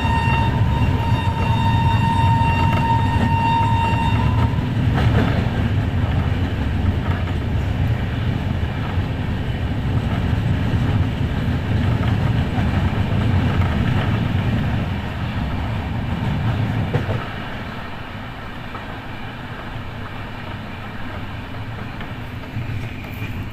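Train running, with a steady low running noise. A held high tone with overtones sounds over it for about the first four and a half seconds. The running noise drops to a quieter level about seventeen seconds in.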